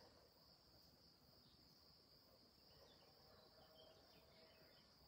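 Near silence, with the faint, steady, high-pitched chirring of crickets.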